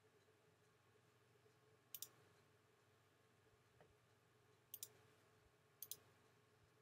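Three sharp double clicks of a computer mouse button, each a press and release: one about two seconds in, then two more a second apart near the end, over a faint steady hum.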